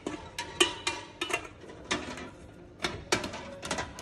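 Irregular knocks and clinks of cut vegetables being set into metal steamer pans inside a pressure cooker, some clinks ringing briefly like struck metal.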